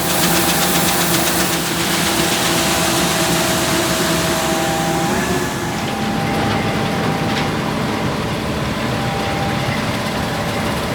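Farm machinery running steadily at a grain bin, a loud hiss with a few held hums; about five and a half seconds in one hum slides down and drops out and the noise gets a little quieter.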